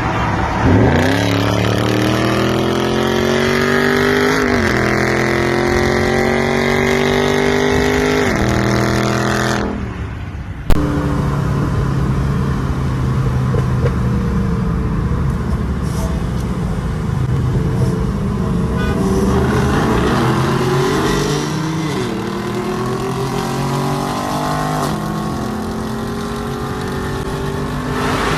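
Car engine accelerating hard through the gears, its pitch climbing and dropping back at each upshift. The run breaks off about ten seconds in, there is a single sharp crack, and then a second pull climbs through more upshifts.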